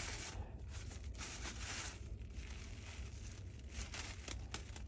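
Rubbing and scraping as caked dust is cleaned out of a cordless vacuum's roller-head housing: a few uneven strokes, each under a second, over a steady low hum.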